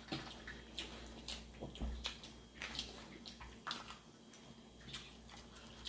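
Quiet eating sounds: wet chewing and lip smacks, with small irregular clicks from spoons and forks against the bowls.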